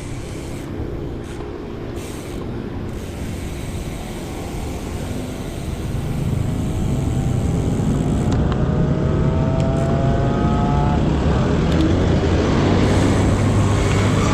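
Road traffic: a motor vehicle's engine grows louder from about halfway through and rises in pitch as it accelerates.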